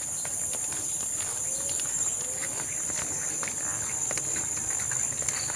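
A steady, high-pitched chorus of insects, with the light, irregular taps and scuffs of footsteps walking along a narrow concrete footpath.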